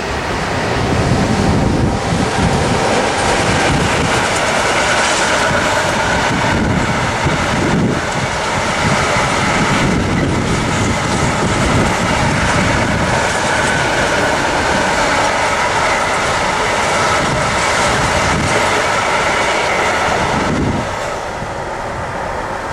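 Long container freight train rolling past: a steady rolling of wheels on rail with the clickety-clack of wagons over the joints, easing off near the end as the last wagons go by.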